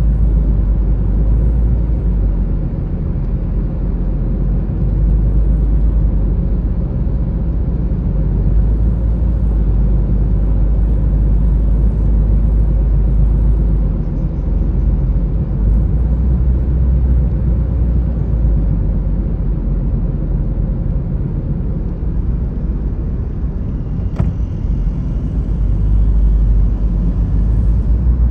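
Steady low rumble of road and engine noise heard from inside a car's cabin while driving along a highway.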